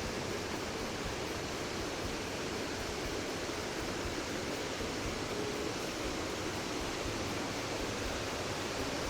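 Steady rushing of a waterfall, an even roar of falling water with no break.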